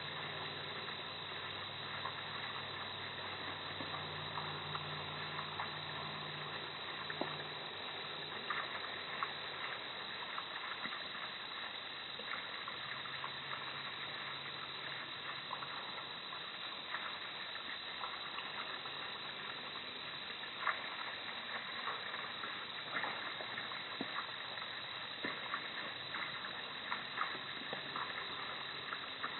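Steady outdoor background hiss with scattered faint clicks, plus a faint low hum for the first several seconds and again briefly around the middle.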